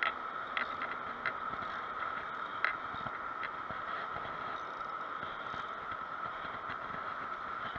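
Spinning reel being cranked while a hooked fish, likely a striped bass, is played on the line: a steady whirr with a few short clicks.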